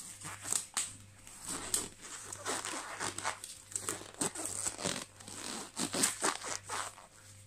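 Disposable gloves crinkling and rustling as they are pulled onto the hands, in short irregular bursts.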